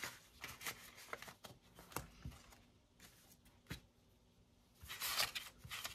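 Paper money and plastic binder sleeves being handled on a desk: light rustles and small taps, a quiet stretch past the middle, then a louder rustle near the end.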